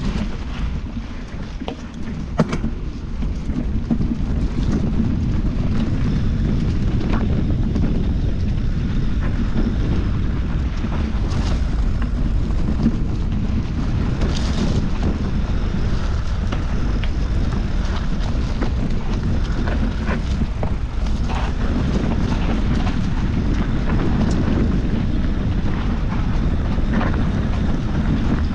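Wind noise buffeting the microphone of a handlebar-mounted camera on a mountain bike, over the low rumble of the bike rolling on a rough dirt trail, with a few sharp knocks and clicks from the bike jolting over bumps.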